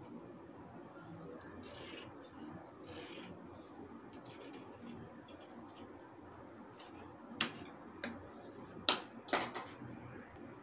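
Scissors cutting through folded cloth: soft snipping and rubbing of the blades through the fabric, then a few louder, sharp clicks in the last few seconds.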